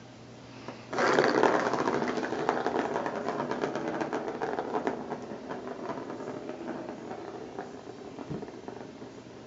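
A ball rolling fast around the plastic track of a Bergan Turbo Scratcher cat toy. It starts suddenly about a second in as a loud rattling run of quick clicks, then gradually slows and quiets.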